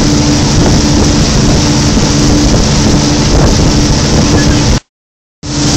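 Motorboat engine running steadily with a low drone, mixed with wind noise on the microphone and rushing wake water. The sound cuts out completely for about half a second near the end.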